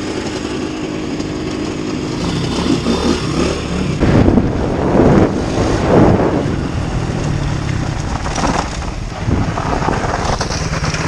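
Small dirt bike engines running and revving as the bikes ride off, with loud rushing surges on the helmet-mounted microphone about four to six seconds in.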